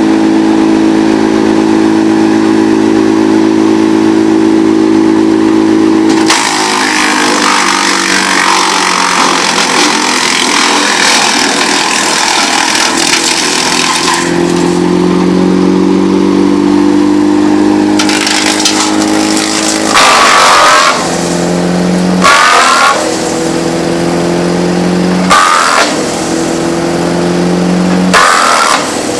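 BearCat wood chipper with a Briggs & Stratton 35 hp V-twin Vanguard engine running at steady full speed. About six seconds in, a loud crunching of chipping starts and lasts some eight seconds while the engine note sags under the load, then the engine picks back up. In the second half, four short bursts of chipping follow a few seconds apart, each pulling the engine note down briefly as a piece of wood is fed through the knives.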